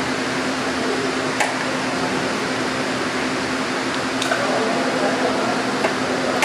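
Steady mechanical hum and hiss of workshop background noise, with a few faint clicks.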